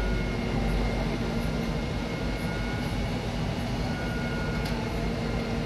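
Steady drone of a fire appliance's engine and pump running, with faint steady whining tones over the rumble.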